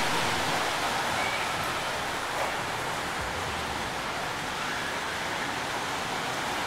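Steady, even running noise of the model trains moving on an indoor display layout.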